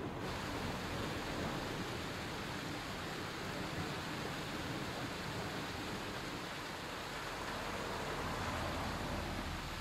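Steady rushing of water from a water mill's race, an even noise with no pauses or distinct events.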